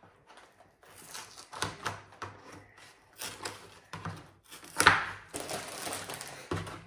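Scissors snipping open the plastic instruction-book bag from a LEGO set, the plastic crinkling and rustling as it is handled. The loudest crinkle comes about five seconds in.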